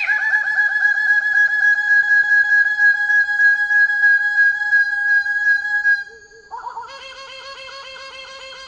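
Bird-of-paradise song: one long, unbroken whistle with a fast, even warble, held at one pitch for about six seconds. It then drops to a lower, quieter warbling note.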